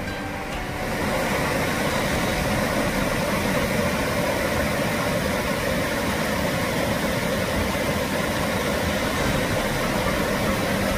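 Creek water rushing over the lip of North Falls: a loud, steady sound of falling water that swells about a second in.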